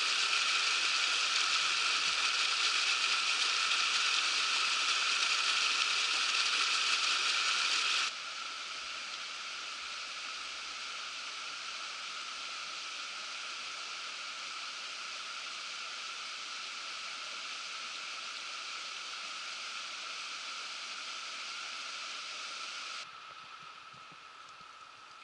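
Steady hissing noise with no rhythm, dropping abruptly in level about eight seconds in and again near the end.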